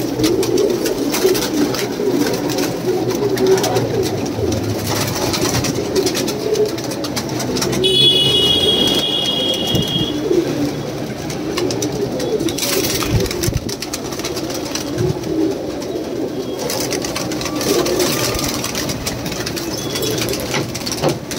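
Many domestic pigeons cooing at once, a continuous overlapping burble. About eight seconds in, a high steady tone sounds for about two seconds.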